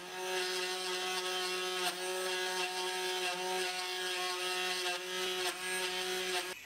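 Router on a homemade CNC machine running at steady speed as its bit mills a hole into a 4 mm acrylic plastic plate: a steady motor whine, dipping briefly about two seconds in and again later.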